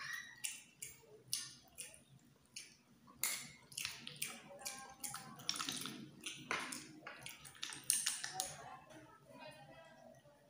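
Close-up eating of freshwater snails (kuhol) in coconut milk: sharp sucking slurps and clicks as the meat is picked and sucked from the shells, about one or two a second, with some chewing.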